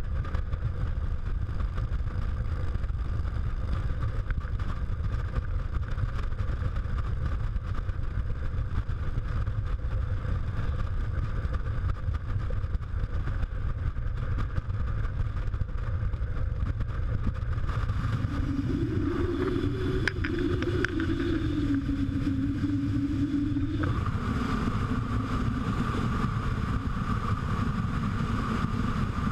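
Motorcycle cruising at highway speed: heavy wind rumble on the camera microphone over the steady drone of the engine. About two-thirds of the way through, a mid-pitched engine tone wavers in. Near the end the sound changes abruptly.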